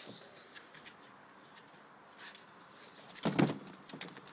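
A pug jumping down off a plastic folding table and landing with a thump on the tile floor about three seconds in, after a few faint clicks.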